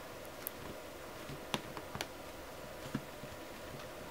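A few faint, sharp clicks and taps, spaced irregularly, from a small hand tool and fingertips working along the edge of an LCD panel's frame, pressing an LED backlight strip into place.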